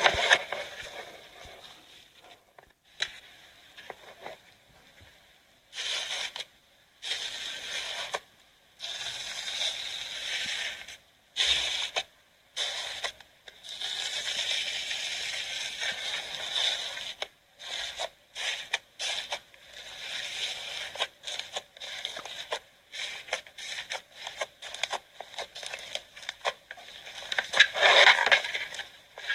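Crunchy slime being squeezed and poked, crackling and crunching in short stretches broken by abrupt cuts.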